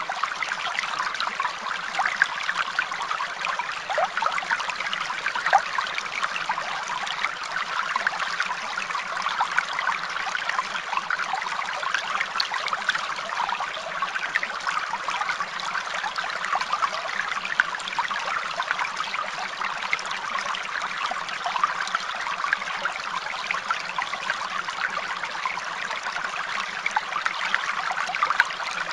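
Steady trickling, running water, like a small stream, dense with small splashing ticks.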